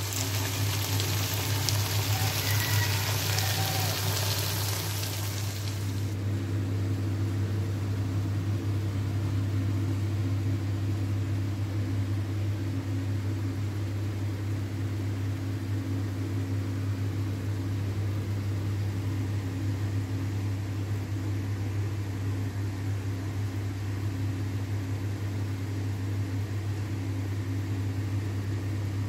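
Pui saag with fish head sizzling in the hot pan for about the first six seconds; the sizzle then stops abruptly. A steady low mechanical hum runs underneath throughout.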